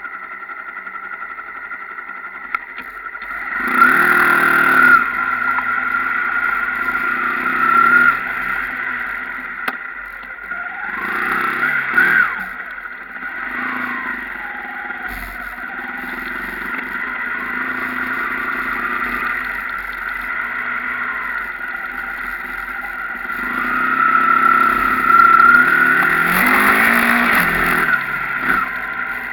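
Off-road motorcycle engines running and revving, rising and falling in pitch, with louder surges of throttle about four seconds in, around twelve seconds, and again near the end.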